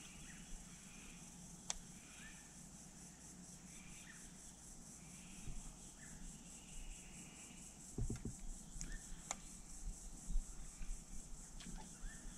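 Quiet riverbank ambience: a steady high insect drone with short bird chirps scattered through. A few sharp clicks and a low knock about eight seconds in.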